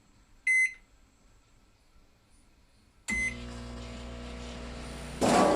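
Microwave oven, refitted with a larger magnetron and high-voltage capacitor, beeping once from its keypad; about three seconds in it beeps again and starts running with a steady hum. Near the end comes a short, louder noisy burst.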